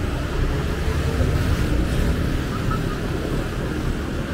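Street traffic of motorbikes and cars running past, a steady low rumble of engines.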